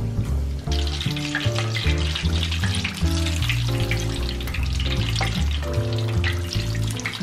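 Empanadas deep-frying in hot oil in a cast iron skillet: a dense sizzle full of small crackles and pops that swells about a second in. Background music plays under it.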